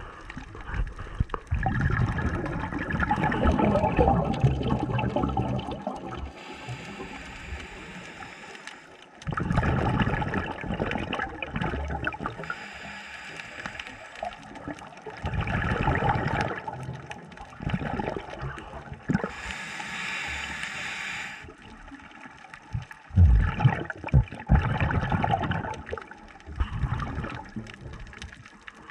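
Underwater sound through a camera housing: a diver's breathing, with a gush of bubbles every few seconds and quieter stretches between.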